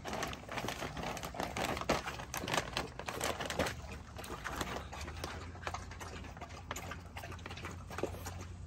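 French bulldog puppy nosing into an open plastic bag of dry dog food: the bag crinkles and rustles with quick small clicks. The sound is busiest over the first few seconds, then thins out.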